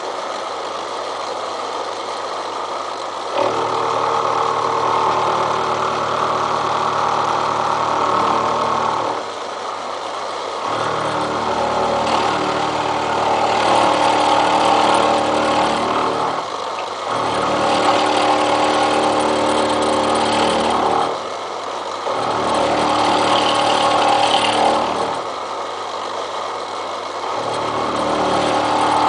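Milling machine running while it mills a steel railroad-track anvil. Its sound swells louder five times, for a few seconds each, with a deeper hum and a pitched whine added each time.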